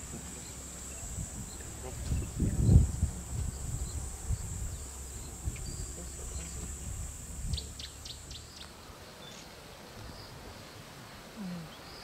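Bush ambience: a steady high insect drone that stops about nine seconds in, a few short bird chirps, and a burst of low thumps and rustling about two to three seconds in.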